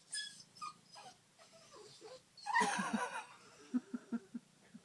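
Pit bull puppy whimpering and whining in short high-pitched cries, with a louder, noisier sound about two and a half seconds in; the whimpering is the puppy's fear at having to walk past a cat.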